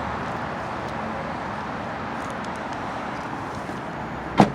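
Steady outdoor traffic and wind noise, with one sharp click near the end.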